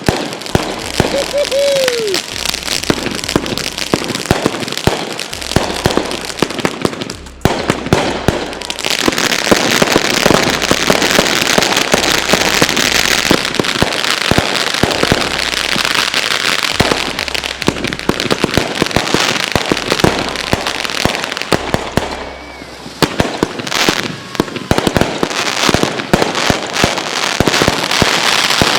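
A barrage of consumer firework cakes and mortars from a grand finale, going off in dense, continuous bangs and crackles, with brief lulls about seven and twenty-two seconds in. A short falling whistle comes near the start.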